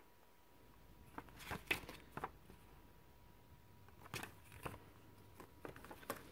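Pages of a glossy CD booklet being turned by hand, with faint, scattered paper rustles and soft taps, then the card and plastic album packaging being handled.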